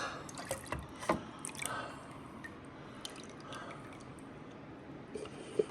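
Light clicks and knocks of a container of laxative drink being handled, with faint dripping of liquid, and a sharper knock near the end.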